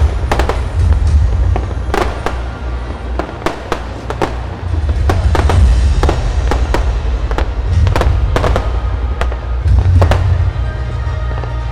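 Fireworks display: a rapid, irregular series of sharp bangs and crackles from bursting aerial shells over a continuous deep rumble.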